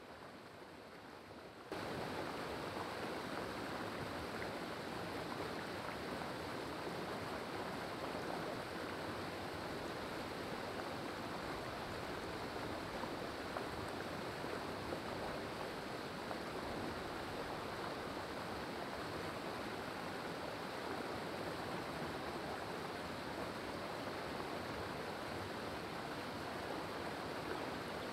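Steady rush of creek water running over rocks. It gets suddenly louder about two seconds in, then holds even.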